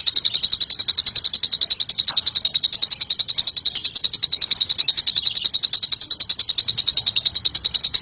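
Cucak ijo (green leafbird) singing a cililin-style song: one high, rapid, unbroken trill of about ten notes a second, steady throughout.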